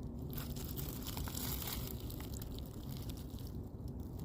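Wind rumbling on the microphone, with faint rustling and a few light clicks; a brief hiss comes about a second in.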